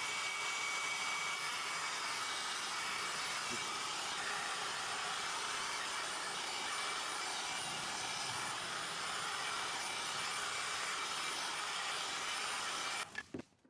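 Heat gun blowing steadily with a faint whine, heating fresh fire cement on a car exhaust to help it cure and stick; it switches off suddenly near the end.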